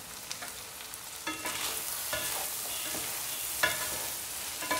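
Long beans and carrots sizzling in a wok as they are stir-fried with two wooden spatulas. The sizzle grows louder about a second and a half in as the tossing starts, with four short knocks of the spatulas against the pan.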